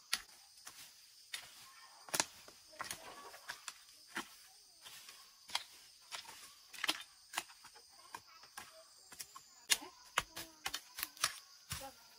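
Irregular light clicks and taps, coming unevenly and sometimes several a second, over a faint steady high-pitched hum.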